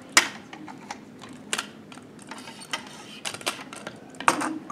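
Hard plastic building pieces clicking and clacking as they are handled and pushed together, in irregular taps. The two loudest clacks come just after the start and near the end.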